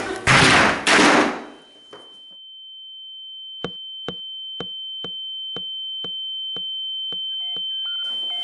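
Two loud crashing bursts in the first second and a half, then a single high, steady ringing tone that slowly swells, like the ringing in the ears used in film sound design. From about halfway in, hard-soled footsteps on a wooden floor click evenly about twice a second over it.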